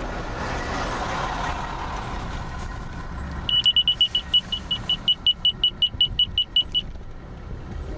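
A vehicle driving on a wet road, heard from inside the cabin as a steady road and engine noise. About halfway through, an electronic beeper starts sounding one high tone over and over, very quickly at first and then about five beeps a second, and stops about three seconds later.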